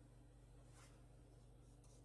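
Near silence: a steady low hum, with one faint brief swish about three quarters of a second in and a couple of faint ticks near the end.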